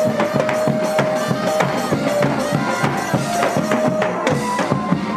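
Thai long-drum (klong yao) procession band playing: fast, steady drum beats with small cymbals and a held melody line over them.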